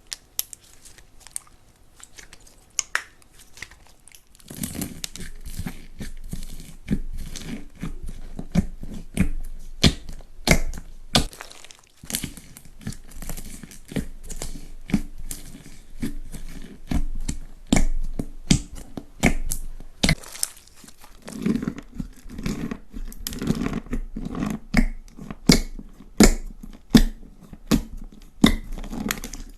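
Slime being squeezed and worked by hand, crackling and popping. There are sparse clicks at first, then a dense, continuous run of crackles from about four seconds in.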